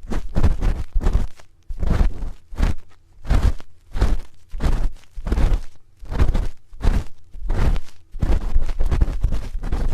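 A spoon scraped and rubbed against an ear-shaped ASMR microphone, giving close-up, bass-heavy scratchy strokes that repeat about one or two times a second.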